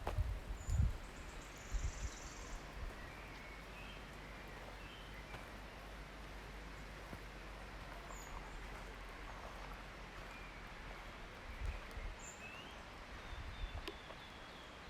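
Forest ambience: scattered short bird chirps over a steady low hiss, with a few low thuds in the first couple of seconds and again near the end.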